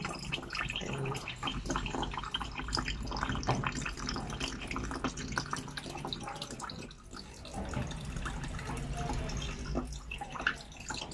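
Evaporated milk pouring from a tipped can into a plastic jug of water: a thin trickle with irregular drips and small splashes, briefly quieter about seven seconds in.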